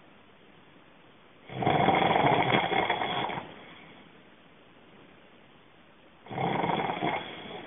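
A person snoring in sleep: a loud snore of about two seconds, a pause of about three seconds, then the next snore beginning near the end.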